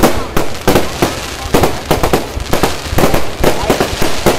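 Aerial fireworks bursting overhead in quick succession: a string of sharp bangs at about three a second, unevenly spaced.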